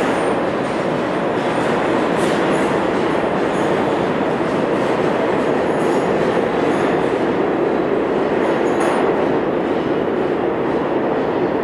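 R160 subway train running through an underground station: a steady, loud noise of wheels on the rails and the moving cars.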